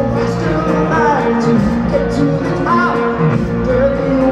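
Live progressive rock band playing: electric guitar, bass guitar, drum kit and keyboards, with a lead vocal line over the band.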